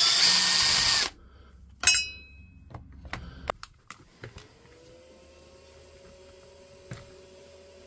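Hands working on a cordless rotary hammer's plastic housing as its screws are taken out: a loud scraping rustle for about a second, then a sharp metallic clink that rings on, a screw landing in a steel parts dish. After that come quieter small clicks and handling sounds over a faint steady hum.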